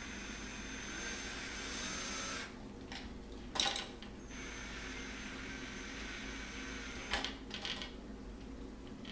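Cordless drill driving screws to fasten metal hooks to a picture frame. The motor runs steadily, stops with a sharp clatter about three and a half seconds in, runs again, and pauses once more around seven seconds in with a few knocks before starting up again.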